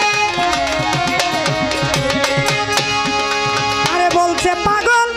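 Bengali Baul folk music: a bowed violin plays a gliding melody over a steady hand-drum beat.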